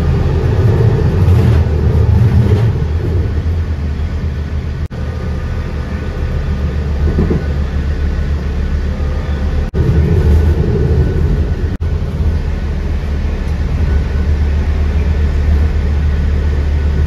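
Steady low rumble of a moving vehicle heard from inside, with a light hiss of tyres on wet pavement; it drops out for an instant three times.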